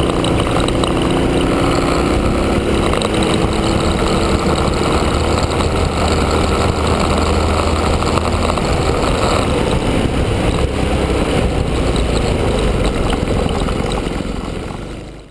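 Honda Cadet kart's single-cylinder Honda GX160 four-stroke engine running on track, picked up by a camera mounted low on the kart, under a steady rush of noise. The sound fades out near the end.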